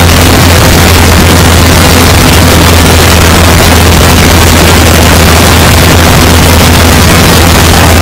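Great Lakes biplane's piston engine and propeller running steadily and very loud, heard close up with heavy wind rush over the microphone on the aircraft.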